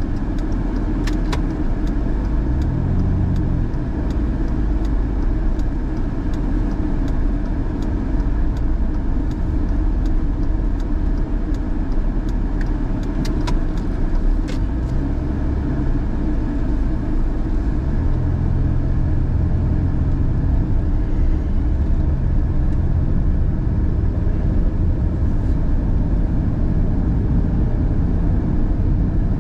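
Car driving at a steady road speed, heard from inside the cabin: a continuous low rumble of tyres and engine with a faint hum that comes and goes. A few light clicks come near the start and again about halfway through.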